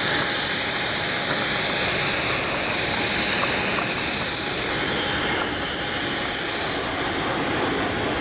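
Jet engines of an Airbus A319 airliner flying low on approach: a steady, loud rush of noise with high whining tones that slowly drift in pitch.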